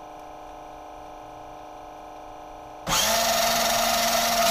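Steady electrical hum, then about three seconds in the RC car's 9.6 V electric drive motor starts up and runs steadily. It is a loud whir with a high whine from the motor and gears, much louder than the hum.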